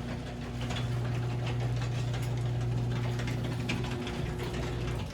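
Electric motor humming steadily with a fast ticking rattle over it, getting louder about a second in and stopping abruptly at the very end.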